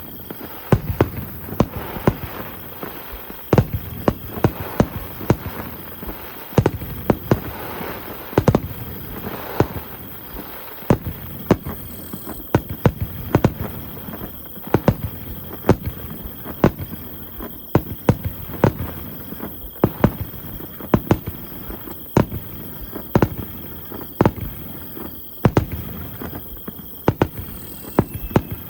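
Aerial fireworks bursting at a festival display: a dense, irregular run of sharp bangs, often more than one a second, over a continuous rumble.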